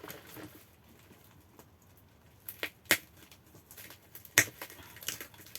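Scattered sharp clicks and crackles of a wrapped package being handled and opened, the loudest snap a little past the middle.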